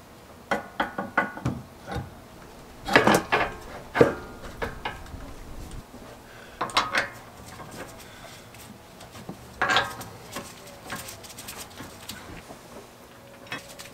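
Metal parts of a long-tail mud motor's shaft and shaft tube being handled, giving scattered clinks and knocks in small clusters with short quiet gaps between.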